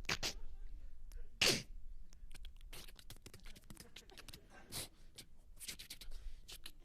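A man making vocal sound effects into a microphone: a string of short, breathy hisses and mouth clicks, with a loud, falling whoosh about a second and a half in.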